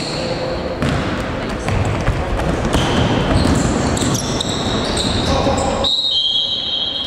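Sounds of a basketball game in a large gym: the ball bouncing, with short high squeaks of sneakers on the court, the strongest near the end, and players' voices.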